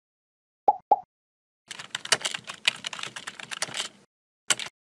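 Computer keyboard typing sound effect: a quick run of key clicks lasting about two seconds. Two short blips come before it, and one last click follows near the end.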